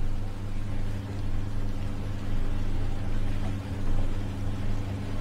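A steady low hum with a faint wash of background noise above it.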